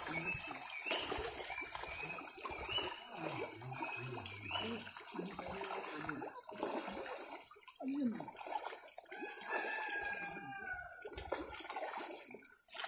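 Water splashing and trickling as a dense shoal of semah fish churns at the river surface, with indistinct voices over it.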